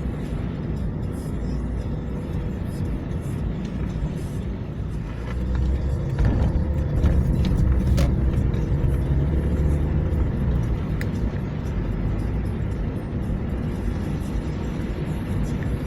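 A car driving, heard as a steady low rumble of engine and road noise that swells for a few seconds near the middle, with music playing faintly over it.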